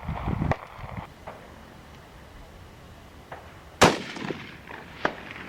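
A single rifle shot about four seconds in, from a .243 Ruger American Predator fitted with a Witt Machine muzzle brake, with a short echo after it. A few small handling clicks come before it.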